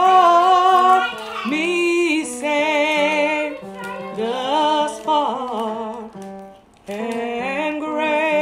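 Gospel-style music: a woman singing slow phrases with heavy vibrato over held low chords.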